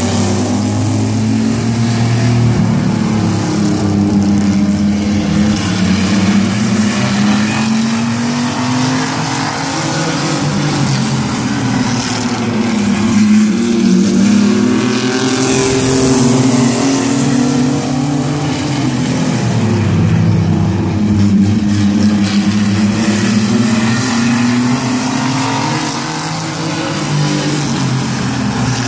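A pack of mini stock pickup trucks racing around a short oval track, several engines at once rising and falling in pitch again and again as the trucks circle past and away.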